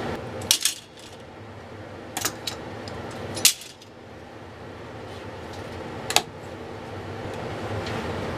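Metal locking C-clamps being released and set down on a wooden workbench: several sharp metallic clanks and clicks at irregular intervals, over a steady background hum.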